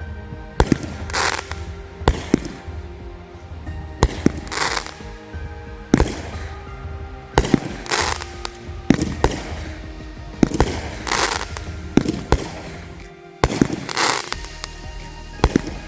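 Consumer fireworks going off: a string of sharp bangs every second or two, several of them followed by a short hissing crackle, with background music playing underneath.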